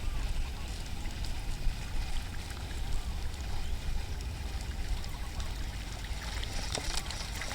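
Strong wind buffeting the microphone: a steady low rumble, with a few faint ticks over it.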